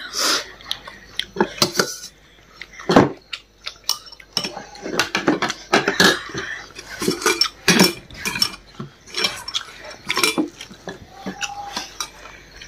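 Cutlery knocking and scraping against a plate or bowl while eating, in many irregular sharp clicks.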